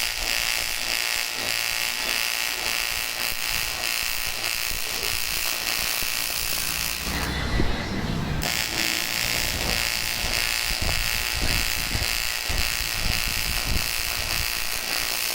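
AC TIG welding arc on aluminium buzzing steadily. The arc breaks off about seven seconds in for roughly a second, then strikes again and buzzes on.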